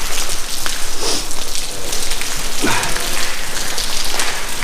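Water falling and pattering steadily inside a derelict building, a dense crackling hiss of many small drips and splashes.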